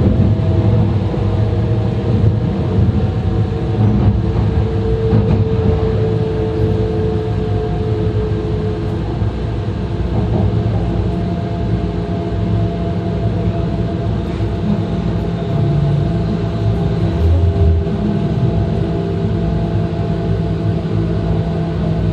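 Running sound inside the vestibule of an E2 series Shinkansen train with Mitsubishi IGBT inverter drive. A steady rumble, with several steady whining tones from the traction equipment that shift from time to time.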